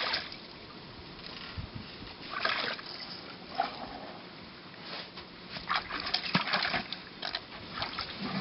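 African elephants drinking from a swimming pool: their trunks splash and slosh the water in irregular bursts, busiest from about five to seven seconds in.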